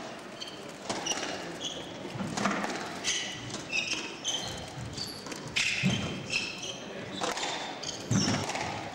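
Squash rally: the ball cracks off racket and walls in sharp hits, about one every second or two, while the players' court shoes squeak briefly and repeatedly on the wooden floor.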